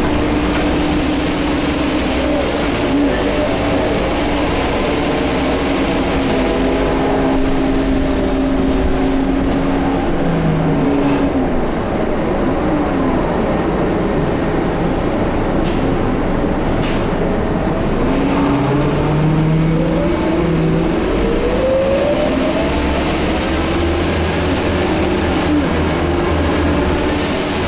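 Scania K230UB bus pulling away twice. A high turbo whistle rises and holds, falls away about eight to ten seconds in, then rises again from about nineteen seconds. Beneath it, lower whines glide up and down over the engine drone; the uploader suspects the hub reduction axle.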